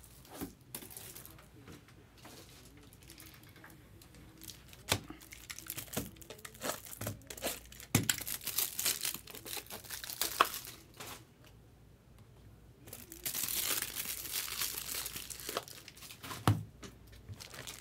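Trading card pack wrappers from a 2019 Bowman Draft Jumbo box being crinkled and torn open, along with taps and knocks from handling the packs and box. There are two longer stretches of tearing and crinkling, one in the middle and one a few seconds before the end.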